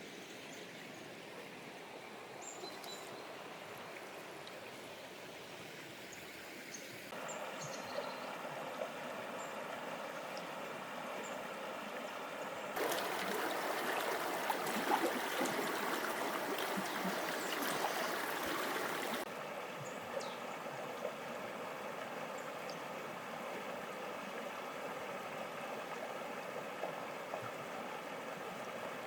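Flowing stream water, a steady rush that jumps in level abruptly about 7 and 13 seconds in and drops back about 19 seconds in, loudest in the middle stretch.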